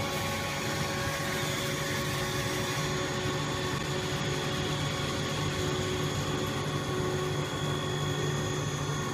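Puffed-snack extruder production line running: a steady machine drone with several steady tones held over it.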